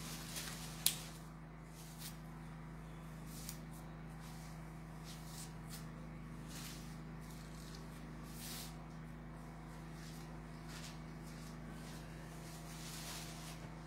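Quiet room tone with a steady low electrical hum. There is a single sharp click about a second in, and faint scattered rustles and ticks.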